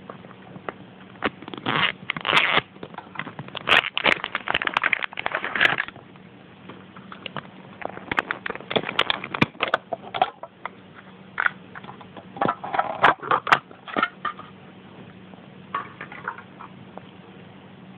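Plastic and foil packaging crinkling and crackling as it is handled and unwrapped by hand, in several bursts with sharp plastic clicks and short pauses between.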